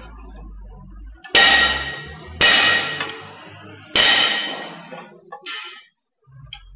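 Three hard metal strikes on a loader's ZF transmission being opened, about a second apart, each leaving the steel housing and clutch drum ringing for a second or more, followed by a few light metallic clicks.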